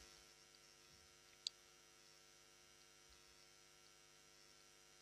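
Near silence: a faint, steady electrical hum, with one short click about a second and a half in.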